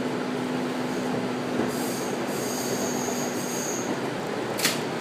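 Former Keio 3000-series electric train running, heard from inside the passenger car as a steady rumble. A high wheel squeal rises from about two seconds in and lasts a couple of seconds, and a single sharp click comes near the end.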